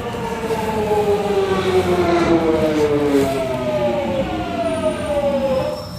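London Underground Jubilee line train's electric traction motors whining, the pitch falling steadily as the train brakes into a station. The whine drops away near the end.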